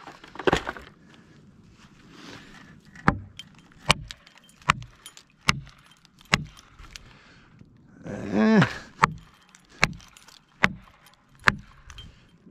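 An axe driving a felling wedge into the back cut: sharp, even blows about every 0.8 s, a run of five and then, after a short pause, a run of four.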